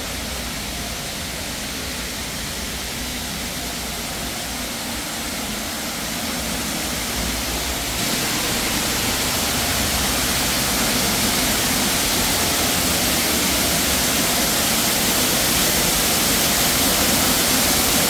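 Indoor artificial waterfall pouring, a steady loud rushing of falling water that grows gradually louder as it is approached.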